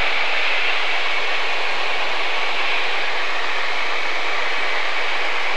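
Steady engine and slipstream noise inside the cockpit of a Grumman light airplane in cruise flight. It is an even, unchanging hiss with almost no low rumble.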